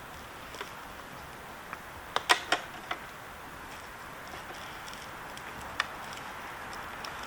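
Sharp clicks and taps of a plastic ECU wiring connector being handled: a quick cluster of about four a little over two seconds in and a single click near six seconds, over a steady low hiss.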